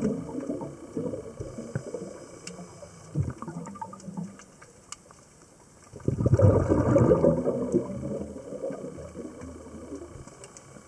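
Scuba diver's regulator exhaust: a burst of exhaled bubbles gurgling loudly at the start and fading away, then a second exhalation about six seconds in that fades over the following few seconds. Faint clicks sound in between.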